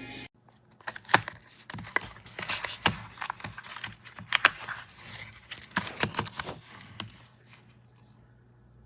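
Handling noise: irregular clicks, taps and rustles of small objects being handled, dying away near the end.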